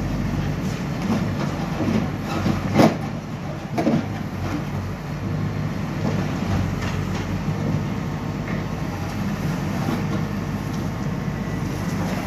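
Hidromek backhoe loader's diesel engine running steadily, with a sharp knock about three seconds in and another about a second later.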